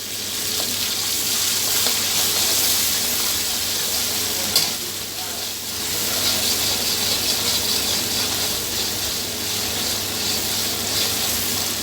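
Spiced masala of capsicum, tomato and green chilli sizzling steadily in a hot pan as it is fried and stirred, a little water having just been added. There is one sharp clack, about four and a half seconds in.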